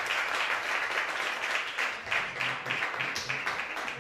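Theatre audience applauding: many hands clapping together in a dense, steady patter.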